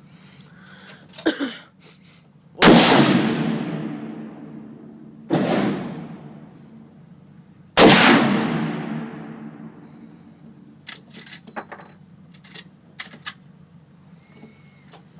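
Three rifle shots roughly two and a half seconds apart, each a sharp crack with a long echoing tail; the middle shot is quieter. A few short metallic clicks follow a few seconds later.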